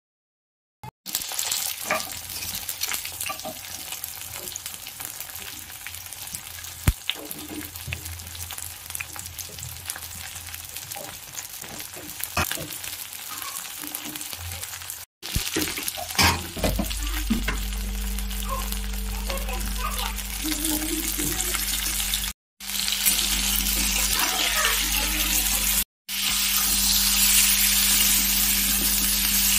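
Raw jackfruit chunks sizzling in oil in a metal wok, with a spatula stirring and scraping them against the pan. The sizzle is broken by three short gaps and grows louder near the end, and from about halfway a steady low hum runs underneath.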